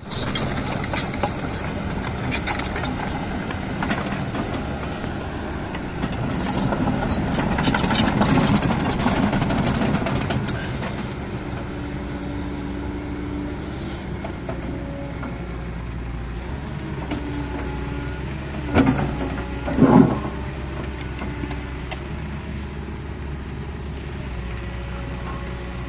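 Caterpillar 319D hydraulic excavator's diesel engine running steadily. The sound grows louder from about six to ten seconds in, and two brief sharp noises come about nineteen and twenty seconds in.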